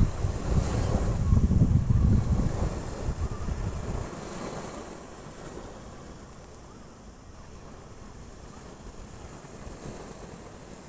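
Wind buffeting the microphone over the wash of sea surf. The buffeting stops abruptly about four seconds in, leaving the steady, softer hiss of the waves.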